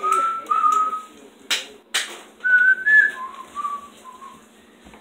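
A person whistling two short phrases of several notes, with two sharp clicks between the phrases.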